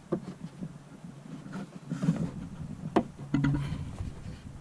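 Plastic push rivets being pressed into the holes of a Wilderness Systems Phase 3 AirPro kayak seat bottom: a few scattered clicks and knocks of handling, the sharpest about three seconds in.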